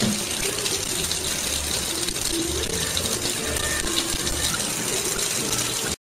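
Kitchen faucet running in a steady thin stream, water splashing into the sink; it cuts off suddenly near the end.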